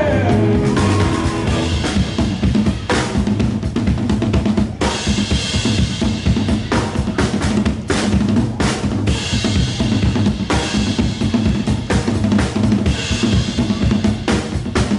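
Drum kit played hard in a live band: fast snare and bass drum hits with rimshots, rolls and cymbal crashes, over a steady low note underneath.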